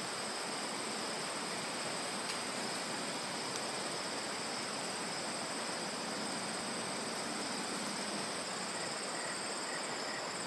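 Steady, high-pitched trilling of insects over an even background hiss, with a few faint short chirps near the end.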